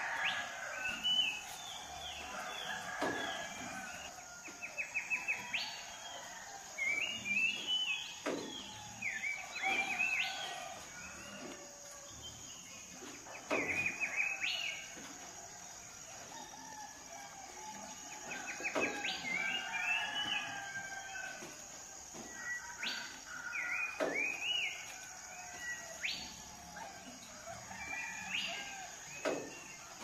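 Songbirds chirping and trilling in short, repeated phrases, with a rooster crowing now and then.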